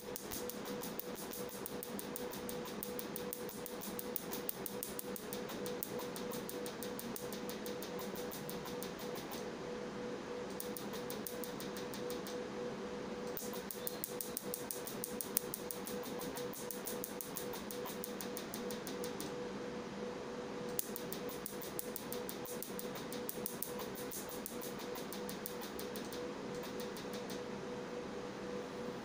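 Q-switched Nd:YAG tattoo-removal laser firing pulse after pulse, a rapid, evenly spaced train of sharp clicks that stops for a second or so several times as the operator pauses, over a steady hum.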